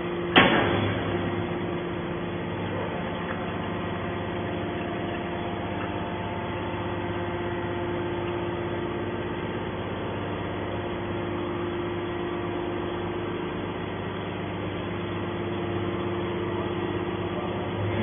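HBM200 hydraulic scrap metal baler running: a steady hum from its hydraulic power pack as the ram pushes the compressed bale out, with one sharp metallic clank about half a second in.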